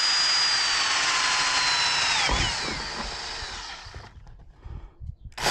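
Power drill pre-drilling a hole through two overlapping pieces of siding: a steady high motor whine that sags slightly, then winds down and stops a little over two seconds in. A sharp knock near the end.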